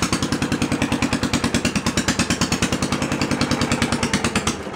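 Briggs & Stratton engine of a Simplicity garden tractor running with a rapid, even beat, kind of loud, still cold after a head gasket and spark plug repair. It cuts off near the end and winds down.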